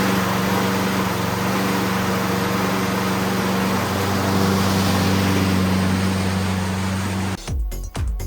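Honda lawn mower's single-cylinder four-stroke engine running steadily after a service, to check that it runs. Near the end it cuts off and electronic music with a steady beat takes over.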